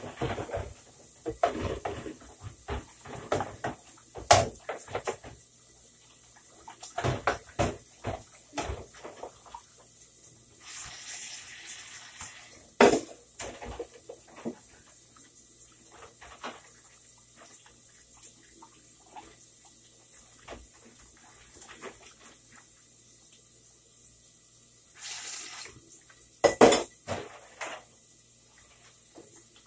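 Pots, pans and cutlery clattering and clanking as they are handled at a kitchen stove and counter, in irregular bursts with a few sharp clanks. Two brief rushing noises come about eleven and twenty-five seconds in.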